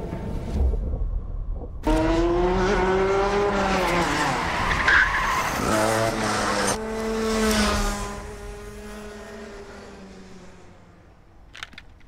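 A go-kart engine revving hard as the kart is driven fast, its pitch falling and then climbing again, with tyres skidding. It cuts in suddenly about two seconds in, after a low rumble, and fades away toward the end.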